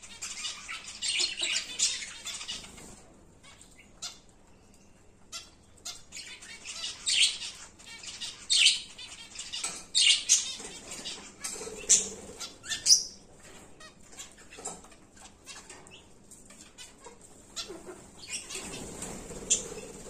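Zebra finches at a seed bowl: irregular flurries of wing flutters and quick, scratchy pecking in the seed, with a few short calls.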